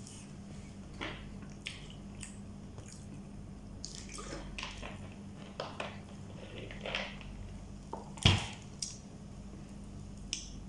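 Close mouth sounds of eating by hand: wet smacking and chewing with scattered small clicks, and one louder sharp click about eight seconds in.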